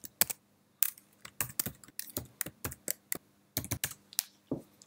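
Typing on a computer keyboard: quick, irregular runs of key clicks with short pauses between them, stopping shortly before the end.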